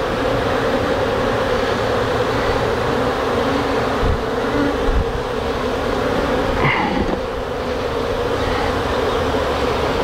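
Dense, steady buzzing of a large number of honey bees swarming around their exposed comb as the colony is disturbed during a cut-out. A few soft knocks sound through it about four, five and seven seconds in.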